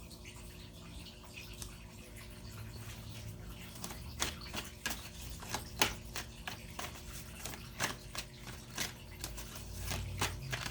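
Light, irregular clicks and taps, starting about four seconds in, over a faint steady low hum.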